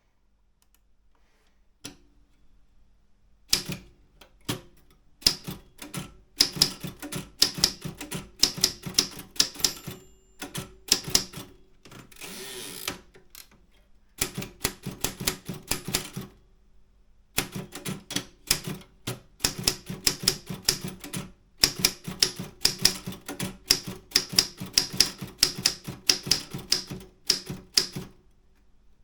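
Optima M10 manual typewriter being typed on: runs of sharp key strikes, several a second, broken by short pauses, starting a few seconds in after a single click. A brief scraping sound comes about twelve seconds in.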